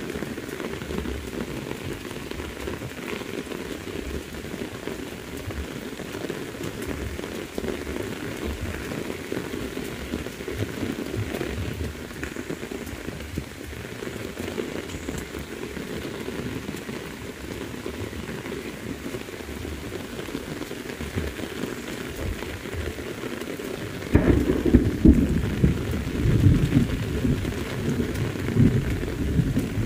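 Heavy rain falling steadily. Near the end a loud, low rumble of thunder breaks in and rolls on, swelling and easing.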